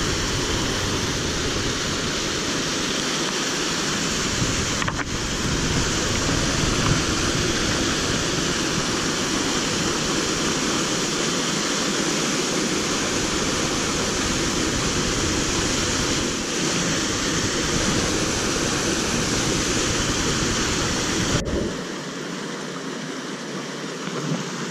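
Steady rush of a mountain stream and small waterfall pouring over rocks. Near the end it drops suddenly to a quieter, thinner rush without the deep rumble.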